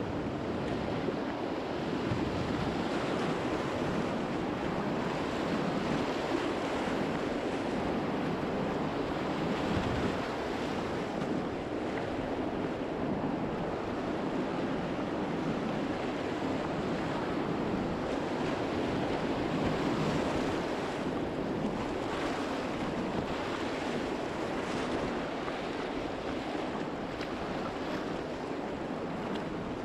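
River rapids rushing steadily, with some wind on the microphone.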